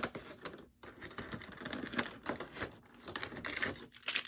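Hands handling toy packaging: a quick, irregular run of small clicks, taps and crinkles of cardboard and plastic as the box is opened up.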